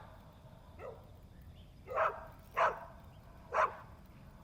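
A dog barking: a faint bark about a second in, then three louder barks about a second apart.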